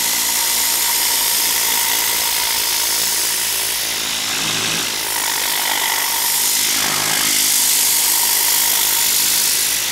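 Tornador Z-010 S compressed-air cleaning gun spraying diluted cleaning solution into fabric upholstery. It makes a loud, steady air hiss with a faint steady whine.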